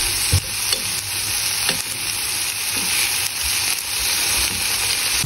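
Fish steaks sizzling steadily in hot oil in a frying pan, with a few light clicks of metal tongs against the pan as the pieces are turned over.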